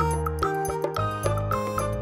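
Background music with a steady beat of about four ticks a second over a bass line.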